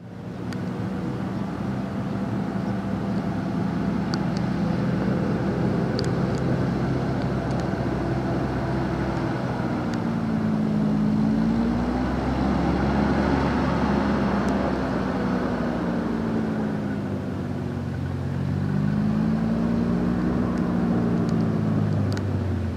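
Hovercraft's engine and ducted propeller running in a steady drone, its pitch rising and falling twice as it passes.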